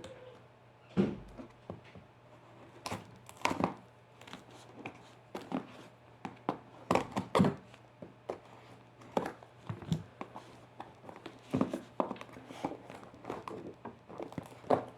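Cardboard box and packaging being opened and handled: irregular sharp rustles and knocks.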